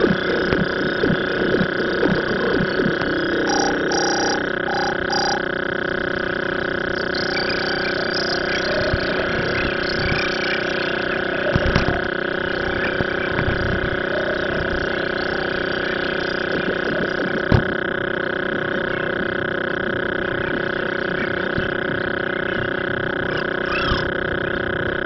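A steady mechanical hum that holds one unchanging pitch, with four short beeps about four seconds in and a couple of faint knocks later.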